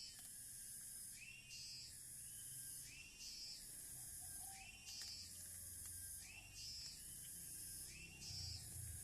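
Faint animal call repeating steadily about every second and a half: a short rising whistle-like note followed by a high hiss, over a low background rumble.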